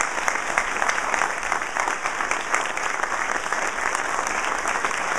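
A large audience applauding: dense, steady clapping from a full hall.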